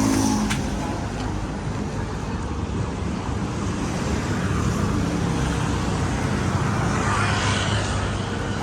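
Road traffic noise: vehicle engines running steadily, with no single event standing out.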